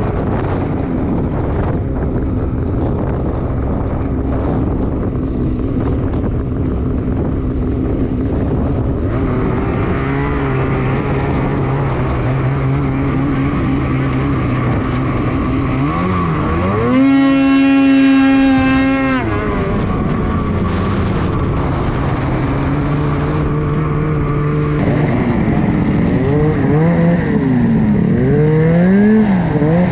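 A 2021 Polaris Switchback Assault 850 snowmobile's two-stroke twin engine running under way with a steady drone. About two-thirds of the way through it revs up to a high pitch for a couple of seconds and drops back. Near the end the revs rise and fall repeatedly with the throttle.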